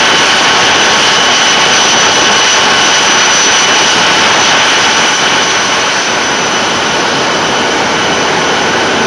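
TEP70 diesel locomotive's engine and turbocharger running under load, a steady high turbine whistle over the dense diesel noise. It eases slightly about six seconds in.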